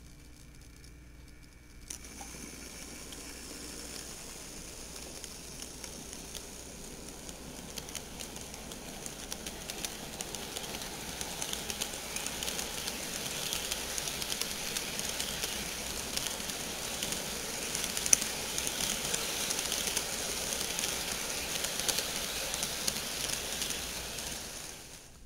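HO scale model freight train, led by an Athearn GP40x locomotive, running along sectional track: a steady rolling hiss of small metal wheels on the rails with frequent rapid clicks. It starts abruptly about two seconds in, grows louder as the train passes and drops away near the end.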